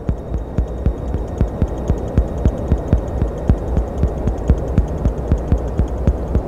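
Experimental soundtrack of a steady low hum under rapid, evenly spaced pulses, several a second, heaviest in the bass.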